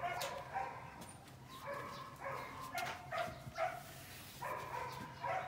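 A string of short, high-pitched animal yips and whines, several in a row with short pauses between.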